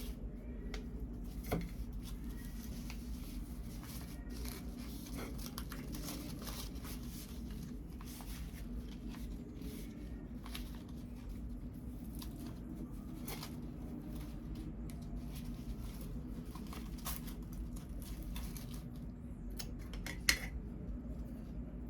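Banana-leaf wrapper of a khao tom mat being handled, peeled and torn open: crinkling and tearing with many small scattered clicks, and one sharp knock near the end.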